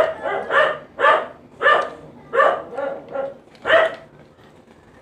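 A dog barking repeatedly at an even pace, about seven barks, stopping about four seconds in.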